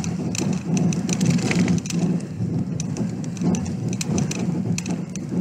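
Car driving on an unsealed dirt road, heard from inside the cabin: a steady rumble of engine and tyres with scattered sharp ticks striking the body and windscreen.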